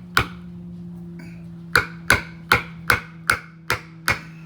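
Hammer strikes seating a wrist pin seal in a Detroit Diesel 8V53 piston: one sharp hit, then after a pause a steady run of about eight hits, two or three a second.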